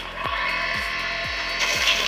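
Background music with a steady beat, over a grinding power tool or machine working wood that fades in and gets louder near the end.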